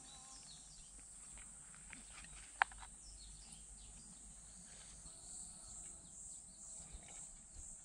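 Faint outdoor ambience of summer insects droning steadily. The drone pulses a few times a second in the second half, with a few faint bird chirps and one sharp click about two and a half seconds in.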